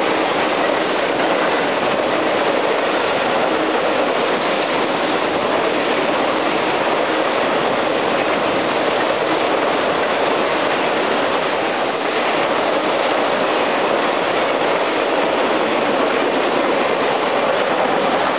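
Long freight train's cars rolling past at speed: a steady, even noise of steel wheels on rail that holds the same level throughout.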